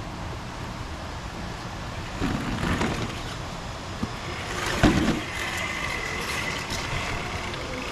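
Small electric RC crawler motor and gears whining as the truck crawls, with a few knocks of the truck against rock, the loudest a bit before the middle and one near halfway, over a steady outdoor rumble.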